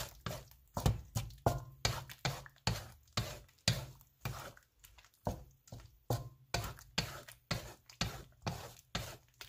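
Wooden spatula scraping and knocking in a nonstick wok while stirring egg into chopped chicken, in a steady rhythm of about two or three strokes a second.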